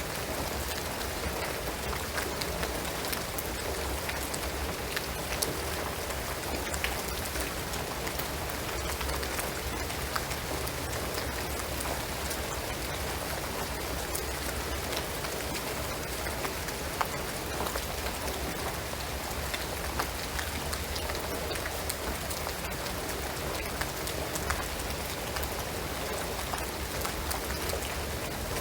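Steady rain falling on a shingled roof and pine trees, a constant hiss dotted with the sharp ticks of single drops.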